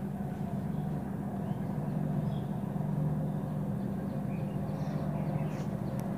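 A steady, low mechanical hum, unchanged throughout, with a few faint light clicks over it.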